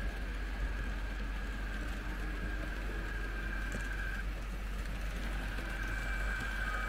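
Märklin H0 model train running along the layout track: a steady rolling rattle with a thin, steady high whine, growing a little louder near the end as the locomotive approaches.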